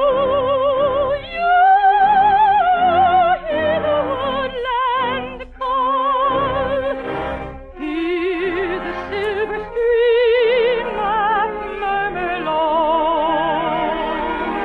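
Operatic soprano singing held, sustained phrases with wide vibrato, separated by short breaks, over an orchestral accompaniment. The recording is an old radio transcription with the top end cut off.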